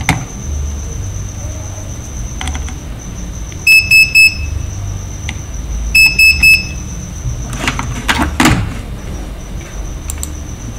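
An electronic beeper giving three quick high beeps, then three more about two seconds later, over a faint steady high-pitched whine; a few clicks follow about eight seconds in.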